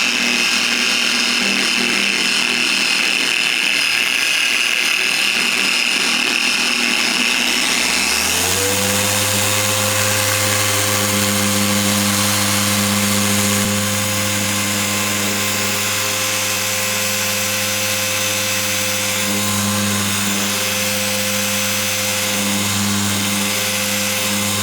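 Electric machine polisher running steadily on a low speed setting, working polish into a painted car panel to cut out 2500-grit sanding scratches. About eight seconds in, its pitch rises and settles into a steadier, deeper hum.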